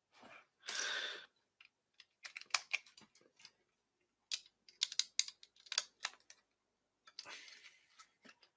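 LEGO bricks clicking and rattling as small plastic pieces are handled and pressed onto an assembly, in quick irregular runs of sharp clicks. A short burst of rustling comes near the start and another near the end.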